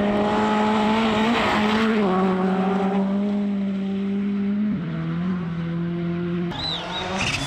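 Rally car engines running hard at high revs on a gravel stage, a steady high engine note that drops in pitch in steps about two seconds and about five seconds in.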